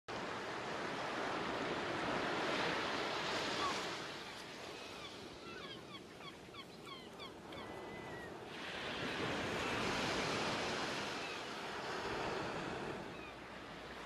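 Ocean waves washing in, swelling twice with a quieter lull in between. During the lull a flurry of short high chirps is heard.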